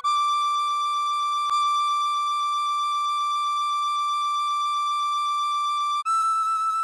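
Tin whistle holding a long, steady high D in its second octave for about six seconds, then stepping up to E near the end. A fainter low piano note fades away under the held D.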